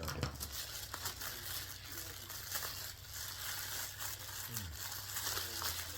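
A package's wrapping crinkling and tearing as it is pulled open by hand, a run of irregular crackles and rips.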